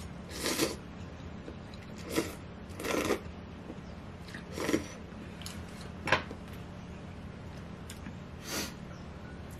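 Thin wheat noodles in broth (janchi guksu) being slurped in several short bursts, with a sharp click near the middle.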